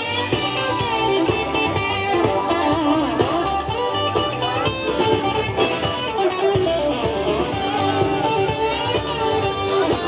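Live band music with guitar to the fore, played loud and continuous on an outdoor stage.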